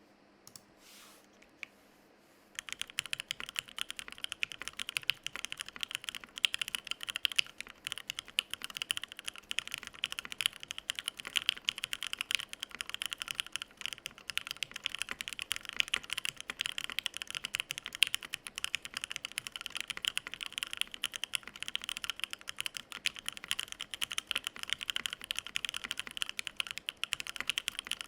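Fast, continuous typing on a mechanical keyboard (UTD 360C, aluminium plate, gummy-worm mount) fitted with lubed and filmed C3 Tangerines V2 linear switches. The typing starts about two and a half seconds in.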